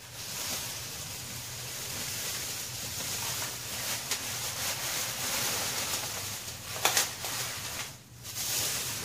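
Sweatshirt fabric rubbing and brushing against the microphone: a steady rustling hiss with a few sharp knocks, the loudest about seven seconds in, and a brief drop just before eight seconds.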